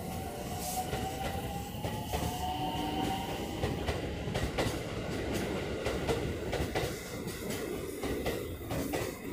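JR West 223 series electric train pulling out of a station. Its traction motors give a whine that rises in pitch over the first few seconds. As it gathers speed this gives way to a rumble of wheels on rail with repeated clacks.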